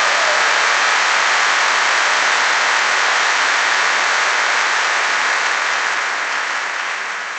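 Large crowd applauding, a dense, steady clapping that eases slightly near the end.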